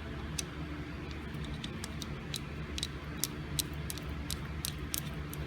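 Light, irregular clicks and ticks of small metal parts of a gumball machine coin mechanism being handled and screwed together, over a steady low hum.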